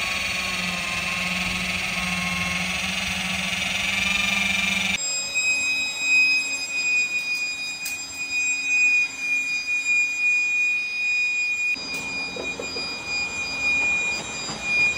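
Steady whine of electric motors from car-detailing machines, with a low hum. The sound changes abruptly twice, settling into a single high, steady whine.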